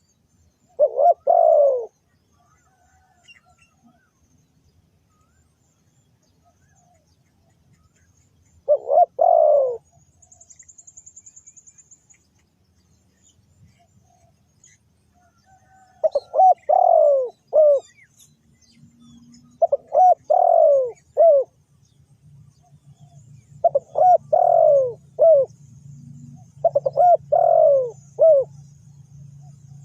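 Spotted dove cooing: short phrases of low, falling coos, a couple of isolated phrases at first, then three-note phrases repeated every few seconds in the second half.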